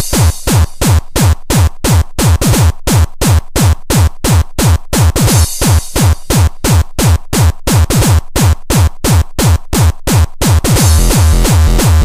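Fast electronic dance music driven by a drum machine: a hard kick drum, about four beats a second, each beat falling sharply in pitch. Near the end the gaps between beats fill in and a pulsing bass line joins.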